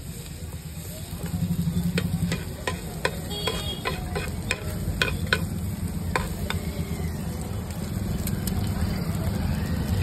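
Metal spatula scraping and tapping against an iron frying pan as an egg is chopped and turned in sizzling oil, with a quick run of clicks and scrapes in the middle. A steady low rumble runs underneath.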